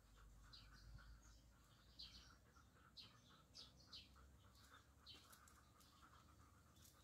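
Near silence, with faint, scattered bird chirps in the background, short and high, roughly one a second.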